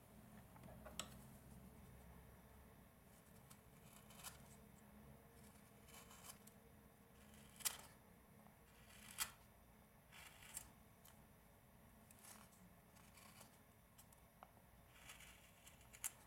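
Carving knife paring shavings from a small wooden figure in short, faint cuts at irregular intervals, about one every second or two.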